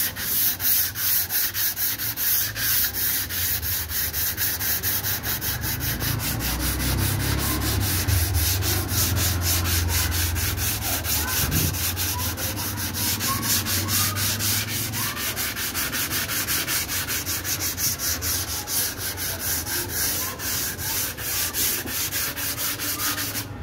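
Body filler on a car door being dry-sanded by hand with a sanding pad: steady, rhythmic back-and-forth rasping strokes, several a second.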